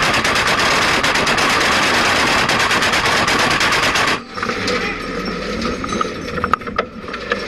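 ZSU-23-4 Shilka's four 23 mm autocannons firing one long, continuous, very rapid burst that stops suddenly about four seconds in. A quieter, ragged clatter with scattered sharp clicks follows.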